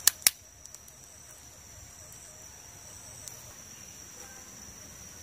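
Two sharp snaps of dry sticks being broken by hand, close together at the very start, over a small smoking campfire. A steady high-pitched insect drone runs underneath.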